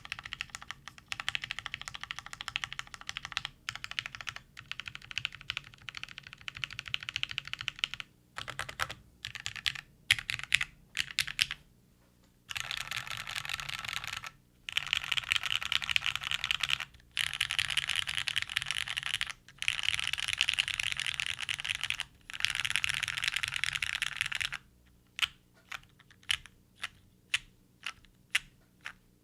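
Custom mechanical keyboard with lubed Cherry MX Black linear switches on an aluminium plate and GMK doubleshot keycaps, typed on fast and continuously in long runs separated by short pauses. Near the end it slows to single keypresses, about two a second.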